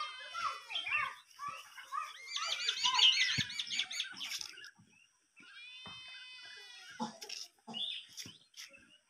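Chickens calling: several drawn-out, high calls, the loudest one with a wavering pitch about a third of the way in and a softer one past the middle, with short low knocks in between.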